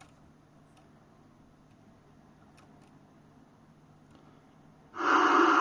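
A few faint ticks, then about five seconds in a sudden loud rush of receiver static hiss from the President Grant 2 CB radio's speaker.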